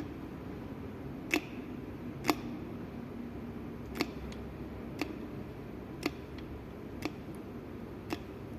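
Small sharp clicks, about one a second, over a low steady hum, from hands working on a hydraulic door closer while it is filled with oil.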